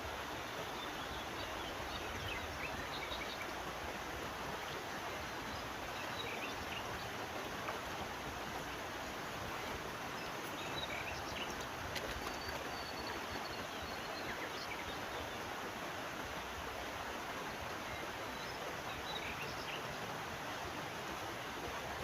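Steady rushing of a flowing river, with faint short bird chirps scattered through it.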